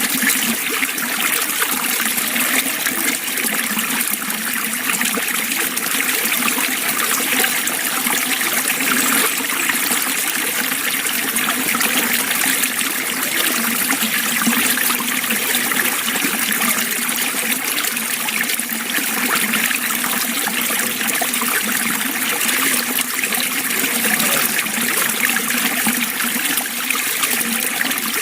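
Running water trickling in a steady, unbroken flow, like a small stream.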